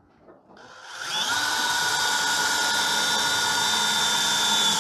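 Power drill driving a screw with a freshly changed driver bit. The motor spins up about half a second in and then runs at a steady whine.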